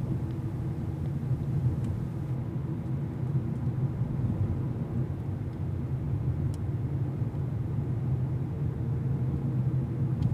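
Steady low drone of a car driving, heard from inside the cabin.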